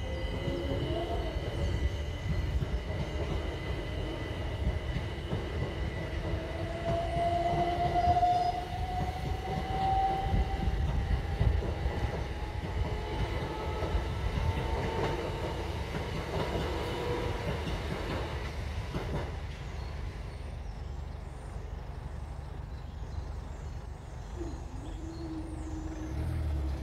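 A Southern Class 377 Electrostar electric train passing over a level crossing, with the rumble of wheels on rail and a motor whine that rises slowly in pitch as it gathers speed. The rumble fades near the end, and a low steady hum starts as the crossing barriers lift.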